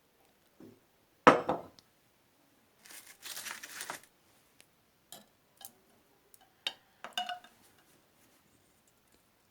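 Kitchen handling sounds: a sharp knock about a second in, a second of rustling, then several light clinks of glass or crockery, the last few with a brief ring.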